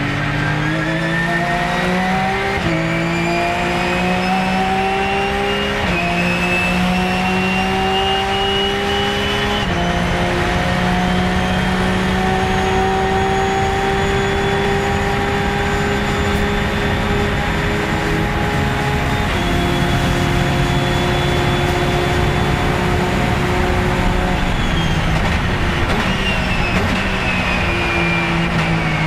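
Porsche 997 GT3 Cup's flat-six engine heard from inside the cockpit at full throttle. It climbs through the gears with sharp upshifts about three, six and ten seconds in and once more past the middle, holds a high steady note, then falls in pitch near the end as the car slows.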